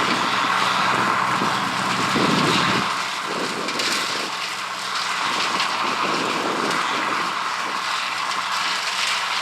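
1983 Gleaner L3 combine harvester running steadily while harvesting corn: a continuous machinery drone of engine and threshing works.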